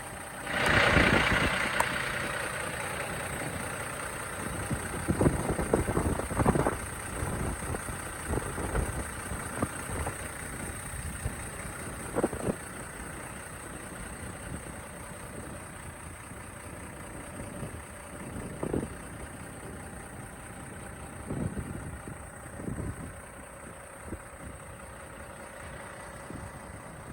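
Semi-truck engine idling steadily, with wind on the microphone. A loud rushing hiss comes about a second in and fades over about two seconds, and there are scattered thumps and knocks.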